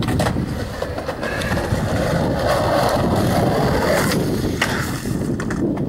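Skateboard wheels rolling on rough asphalt, a steady rumble, with a few sharp clacks of the board, the plainest about four and a half seconds in.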